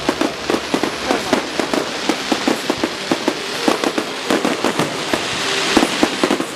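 Aerial fireworks going off in a dense, continuous run of bangs and crackles, many per second.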